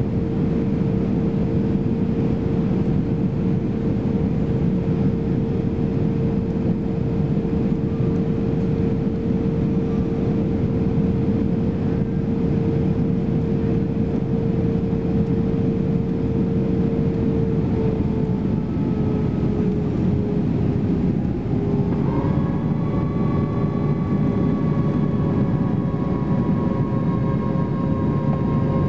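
Steady cabin roar of an Airbus A320-214 on approach: engine and airflow noise with a steady hum that dips slightly about two-thirds of the way in. A few seconds later a higher whine of several tones joins as the wing flaps extend.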